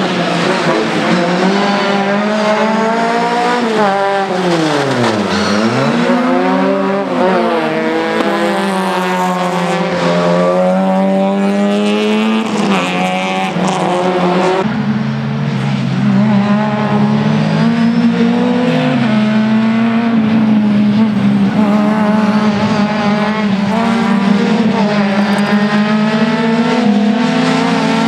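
A Renault Clio competition car's four-cylinder engine, driven hard. It revs up and down as the car brakes and accelerates through the corners, with a deep drop in pitch about five seconds in before it climbs again.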